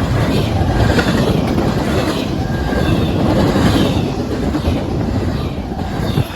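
A fast, heavy CSX freight train passing on the main line: a loud, steady noise of wheels and cars rolling on the rails.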